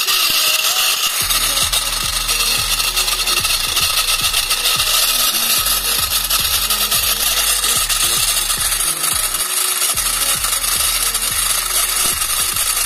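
Small DC-motor-driven miniature chaff cutter running and chopping hand-fed grass blades: a steady high whir with a rasping, rubbing cutting sound. A low hum joins about a second in.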